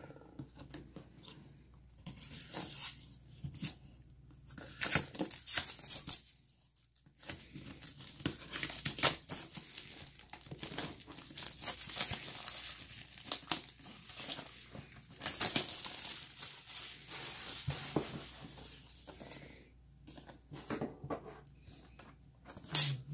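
Plastic shrink wrap on a cardboard box being slit with a pocket knife and torn off, crinkling and tearing in irregular bursts.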